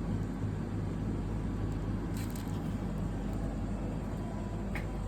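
Steady low electrical hum from the refrigeration unit of a farm milk vending machine, with a short click near the end.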